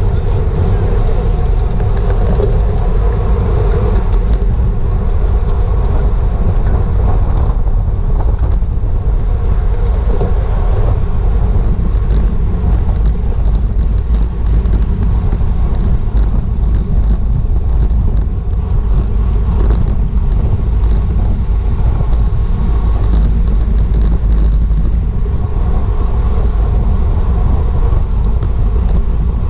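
Wind rushing over a GoPro's microphone on a bicycle ridden at racing speed, a loud, steady low rumble with tyre and road noise. Scattered sharp clicks and rattles come through in the middle stretch.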